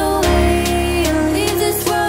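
Background music: a pop song with a steady beat and a bass line.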